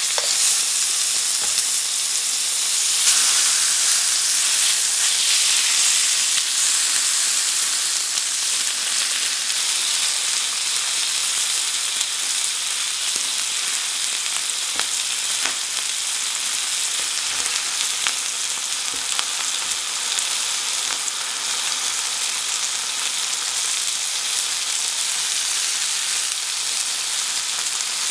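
Pork chops sizzling as they sear in hot oil in a frying pan: a steady frying hiss, a little louder in the first few seconds, with a few faint clicks midway.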